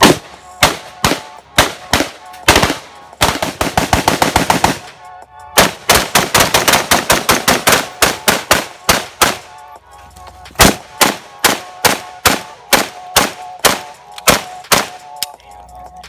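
Gunfire from AK-pattern rifles. Single shots come about two a second, then a fully automatic burst of roughly ten shots a second from about three to five seconds in, and more rapid fire until about nine seconds in. Spaced single shots follow after that.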